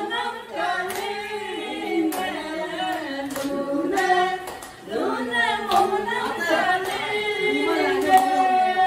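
A group of men and women singing together without instruments, a chant-like dance song with held notes, and a few sharp hand claps.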